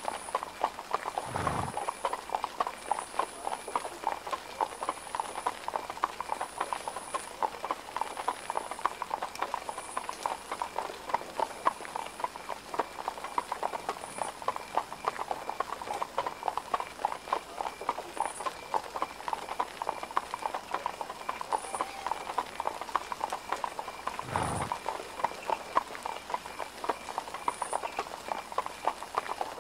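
Horse hooves clip-clopping continuously, many short knocks overlapping, with a low thump about a second and a half in and again near the end.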